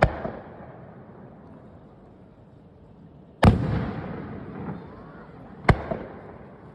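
Three aerial fireworks bursting: a sharp bang at the start, a louder one about three and a half seconds in, and another near the end. Each trails off in a slowly fading rumble.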